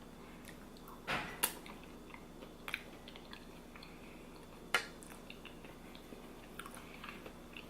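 A person chewing food, with a few short, sharp mouth clicks about a second in, near three seconds and near five seconds.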